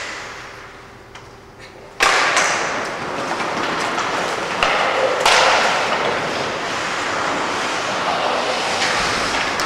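Ice hockey play on a rink: skate blades scraping on the ice, with sharp knocks of sticks and puck. The scraping starts loudly about two seconds in and carries on, broken by a few knocks.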